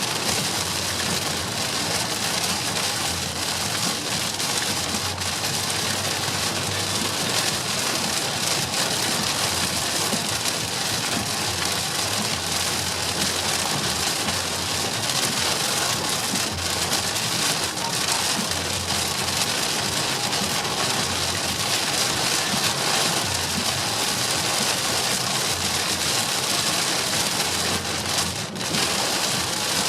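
Heavy rain on a car driving on a motorway, heard from inside the cabin as a steady hiss of rain and tyre spray. It dips briefly near the end.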